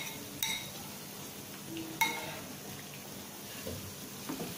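Batter-coated chicken wings deep-frying in plenty of hot oil, a steady sizzle, with a metal utensil clinking sharply against the pan twice, about half a second and two seconds in.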